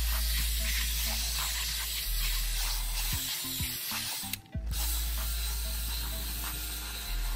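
Cordless drill whirring as it spins a stiff-bristle drill brush against a soapy WeatherTech floor mat, with a short break about four and a half seconds in. Background music plays underneath.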